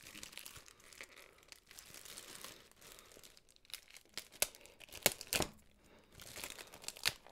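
Plastic wrapping crinkling and tearing as it is pulled off a small box by hand, with a few louder sharp crackles past the middle.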